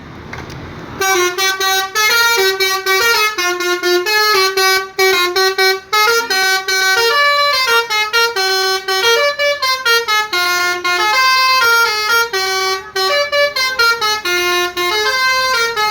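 Basuri-type telolet bus horn, a multi-trumpet musical air horn, playing a fast tune of short stepped notes. A brief rush of noise comes just before the tune, which starts about a second in.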